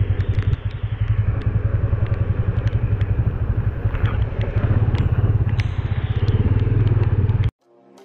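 Motorcycle engine running close-up with a fast, even pulsing beat while riding, with scattered sharp ticks over it. Near the end it cuts off suddenly and soft music begins.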